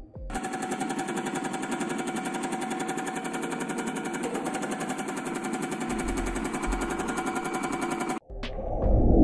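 A steady, droning mechanical hum with many overtones and a fast, even pulsing. It starts abruptly and cuts off sharply after about eight seconds, with a deeper rumble joining in for its last two seconds. It is a recording of the kind of strange droning sound said to come from the sky.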